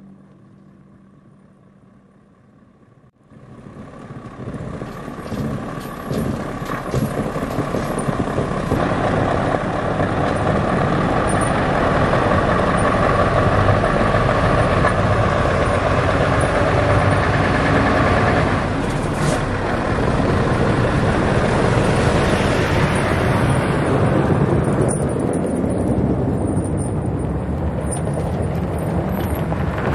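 Scania R650 timber truck's V8 engine running under way, with its snow-chained tyres on a snowy road. The sound comes in suddenly about three seconds in, builds over several seconds, then holds loud and steady.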